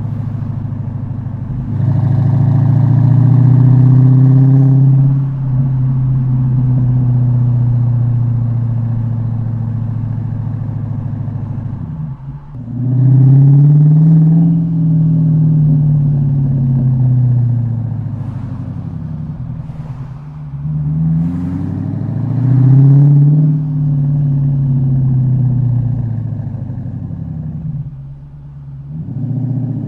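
Dodge Challenger R/T's 5.7-litre Hemi V8 through a valve-deleted exhaust with an H-pipe and Dynomax Race Bullet rear mufflers. It climbs in pitch quickly three times, each time falling away slowly as the throttle closes, with light pops and crackles during the deceleration.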